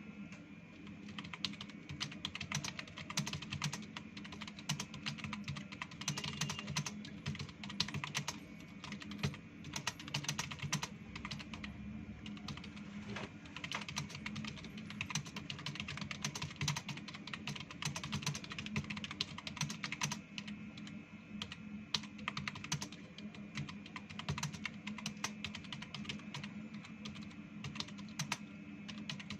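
Computer keyboard being typed on fast and without pause, a dense, continuous stream of keystrokes.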